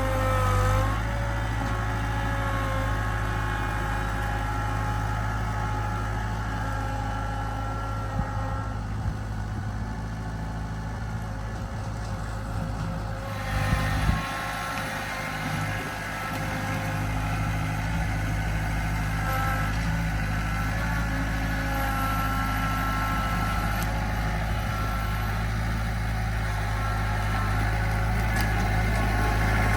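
An engine running steadily at an even speed, a constant low hum with a few steady higher tones over it.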